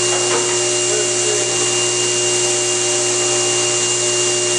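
Table saw with a Micro-Kerf40 blade running with no load: a steady whine over a low hum as the blade spins freely.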